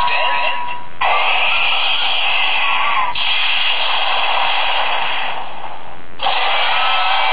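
Sound effect from a DX White Wizard Driver toy belt's small speaker: a loud hissing noise that changes abruptly about one, three and six seconds in.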